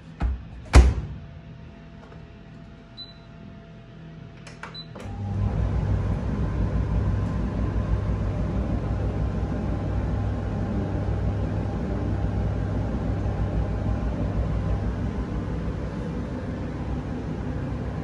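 Beko heat-pump tumble dryer: its door shuts with a loud knock, the control panel beeps twice, and about five seconds in the motor and drum start and run with a steady low hum.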